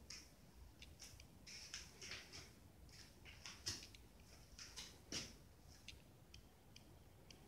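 Near silence with faint, irregular clicks and short rustles, a couple slightly louder in the middle: handling noise from a handheld phone camera being moved.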